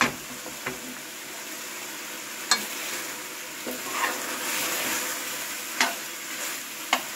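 Chicken pieces sizzling as they sauté in a pan, a steady frying hiss, with about four sharp knocks as they are stirred.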